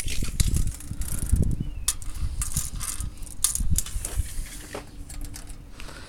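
Handling noise: a string of irregular clicks and knocks with rustling and low rumbling.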